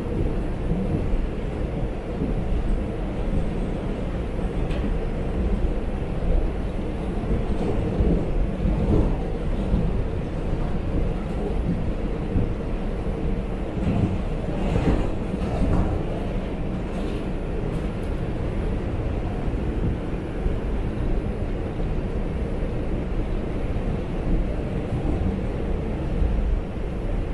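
New York City subway train running between stations, heard from inside the car: a steady rumble and rattle of wheels on the rails, with a louder, sharper stretch of clatter about halfway through.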